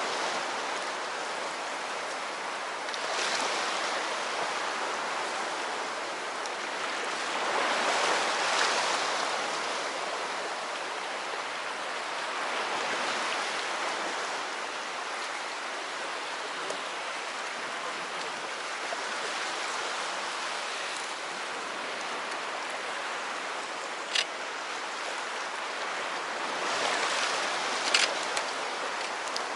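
Sea waves washing onto the shore, swelling in slow surges every few seconds, with a few sharp clicks in the last few seconds.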